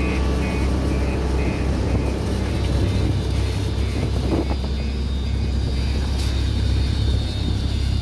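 Diesel engine of a Schwing SX 42 m truck-mounted concrete pump running steadily while pumping concrete, with a low hum. A high beep repeats about twice a second over it until about six seconds in.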